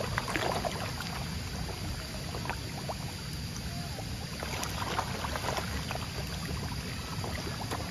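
A dense crowd of feeding catfish churning at the water's surface: continuous sloshing with many small irregular splashes and slaps as the fish break the surface.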